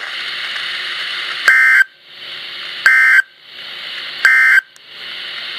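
Three short, loud bursts of Emergency Alert System end-of-message data tones from a NOAA Weather Radio broadcast. The buzzing two-tone code comes about a second and a half apart, with steady radio hiss between the bursts. They mark the end of the alert message.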